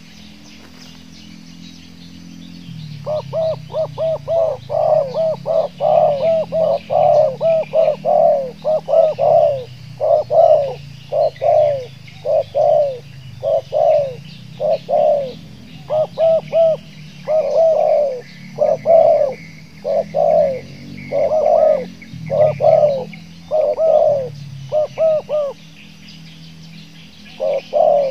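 Spotted dove (tekukur) cooing loudly in long, quick runs of short repeated coo notes, starting about three seconds in, breaking off briefly near the end and starting again.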